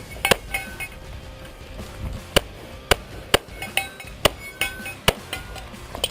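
Pistol shots fired in a string at an action pistol match, about seven sharp reports unevenly spaced half a second to a second apart, with fainter metallic clinks between them.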